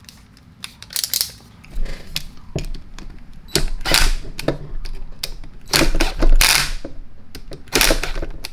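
DeWalt 12-volt cordless drill/driver tightening screws in several short bursts, its adjustable clutch slipping with a rapid ratcheting clatter as each screw reaches the set torque. The clatter is the clutch letting off, not the screws stripping.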